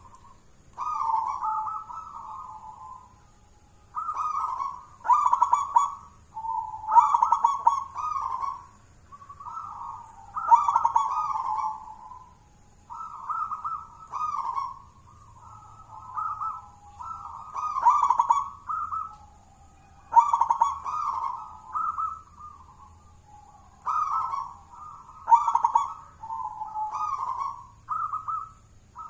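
Zebra dove (perkutut) cooing: phrase after phrase of its song, each about one to two seconds long, with short pauses between.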